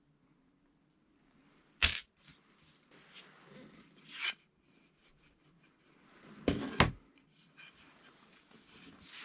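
Objects being handled and set down: a sharp knock about two seconds in, a short scrape around four seconds, then two knocks in quick succession near seven seconds, with soft rustling between.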